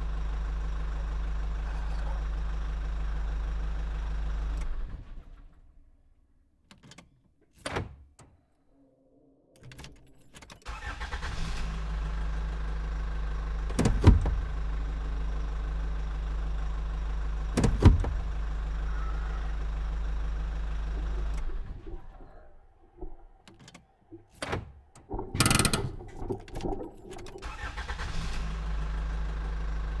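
A truck engine idling steadily with a low, even hum. It drops away to near silence twice for several seconds and comes back, and a few sharp knocks and a short noisy clatter stand out in between.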